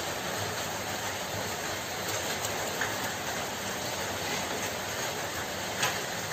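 Steady hiss of heavy rain, with a couple of faint clicks.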